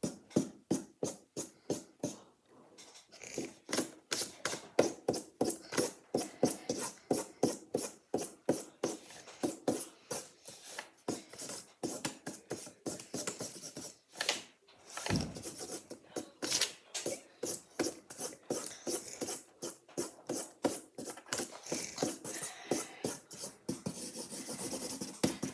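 Marker scribbling back and forth on paper close to the microphone: quick rasping strokes, about four a second, as a picture is coloured in.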